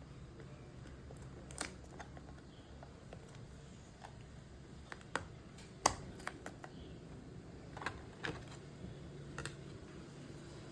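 Small cardboard product box being opened and its packaging handled: scattered faint clicks and rustles, the sharpest about six seconds in, over a low steady hum.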